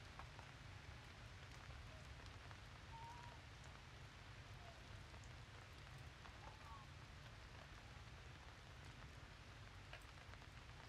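Faint, steady patter of water drops falling in wet forest, with a few short, faint chirping calls and tiny ticks over it.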